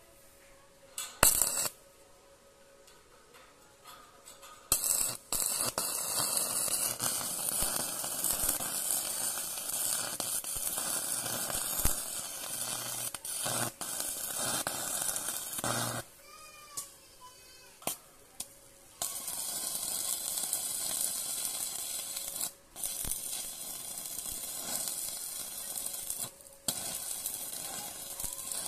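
Lotus inverter welding machine set to 150 amps, its arc cutting through 18 mm steel: a steady crackling hiss that starts about five seconds in, breaks off for a few seconds past the middle, then resumes until near the end. There is a sharp click in the first couple of seconds.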